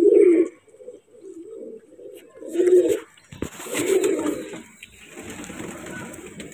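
Domestic pigeons cooing, a series of low coos about a second apart, with a rustle of feathers as a young pigeon's wing is spread out in the hand.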